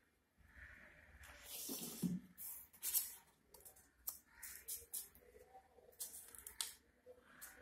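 Paper rustling and crinkling in bursts as paper leaves are pressed and wrapped around a ball for a paper cabbage, with a couple of light taps.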